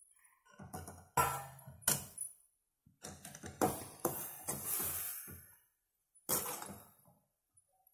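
A metal spoon scraping and clinking against an aluminium kadai as grated apple is stirred in ghee, in a string of irregular strokes with short gaps between them.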